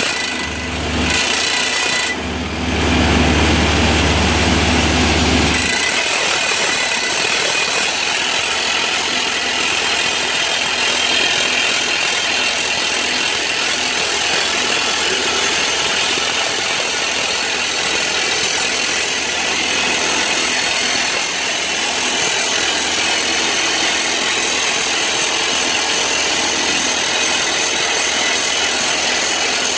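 Soosan hydraulic drill running: a loud, steady mechanical noise, with a deep low rumble under it that stops about six seconds in.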